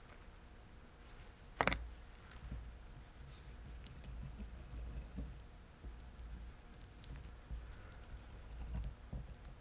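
Light handling noises: one sharp click about one and a half seconds in, then faint scraping, rustling and small scattered taps over a low rumble.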